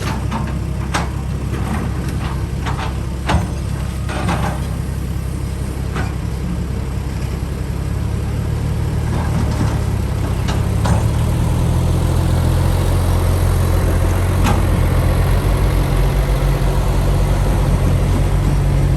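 Excavator's diesel engine running steadily, picking up in pitch and loudness partway through as it comes under load. Several sharp knocks sound over it in the first half and once more later.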